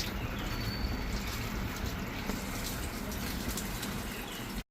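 Running water from the bath, a steady hiss that cuts off suddenly near the end.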